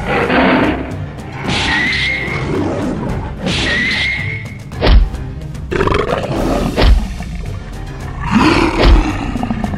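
Lion roars and snarls over background music, with three heavy thuds about two seconds apart in the second half, the loudest sounds in the stretch.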